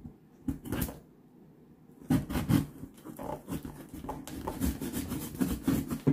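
Cardboard shipping box being opened: a few light clicks of scissors at the tape, then from about two seconds in a continuous run of cardboard flaps and packing being scraped and rustled.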